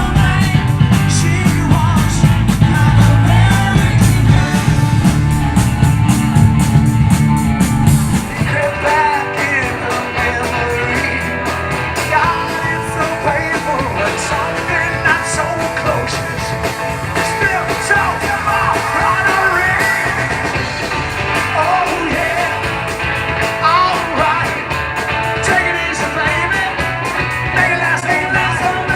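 Rock song with singing and guitar; about eight seconds in, the heavy low end drops away and the song moves into a lighter part with the vocal line more prominent.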